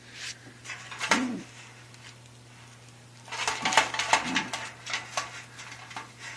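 Caged pigeons cooing a few times, with a burst of clattering and rustling about three seconds in.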